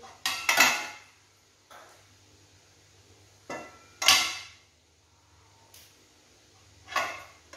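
Stainless-steel pot lid clanking against the rim of a stockpot as it is lifted, tilted and set back. The short metallic clanks ring briefly and come twice about half a second in, twice around the middle, and once near the end.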